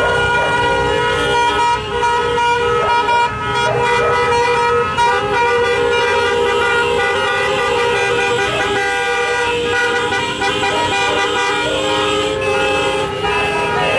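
Many car horns sounding at once, held and overlapping in a steady din from a line of cars.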